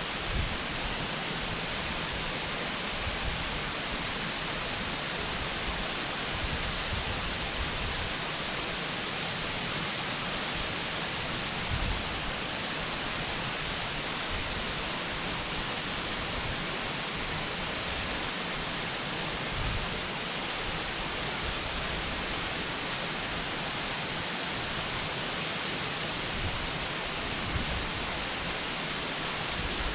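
Waterfall heard from a distance: a steady, even rush of falling water, with occasional light low buffets of wind on the microphone.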